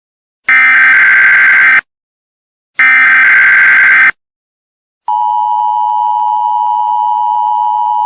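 Emergency Alert System SAME header: two loud, harsh data bursts a second apart, the last two of the three-burst header. After a second of silence, the steady two-tone EAS attention signal starts about five seconds in.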